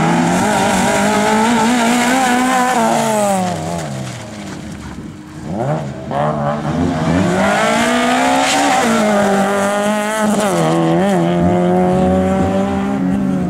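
Rally car engine at high revs. Its pitch falls away about three seconds in and the sound dips, then it climbs hard from about six seconds in and is held high with quick gear-change dips.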